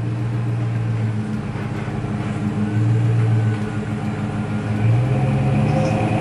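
Pickup truck engine running at low revs while the truck reverses slowly, growing louder as it comes closer.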